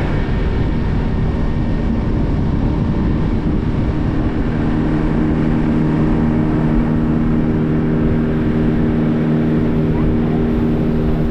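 Outboard motor of a small boat running steadily under way, a constant engine drone over the rush of wind and water.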